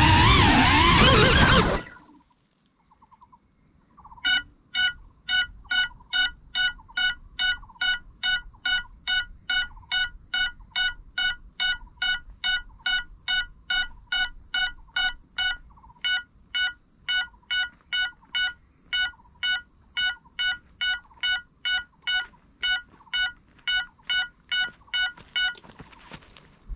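Music cuts off about two seconds in. After a short quiet, a crashed FPV quadcopter's locator beeper sounds, short high beeps at an even rate of about two a second, which stop shortly before the end.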